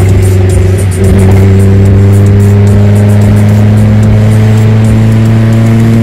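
Maruti Zen with an aftermarket sports exhaust, heard from inside the cabin while driving: a loud, steady exhaust drone. The drone dips briefly about a second in, then its pitch climbs slowly as the car pulls.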